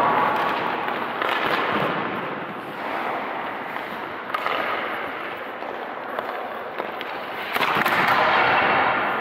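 Hockey goalie drill on ice: skate blades scraping the ice in swells, loudest at the start and again near the end. A few sharp knocks of a puck, stick or pad come in between.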